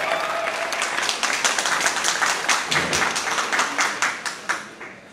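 Audience applauding, with individual hand claps distinct, dying away near the end.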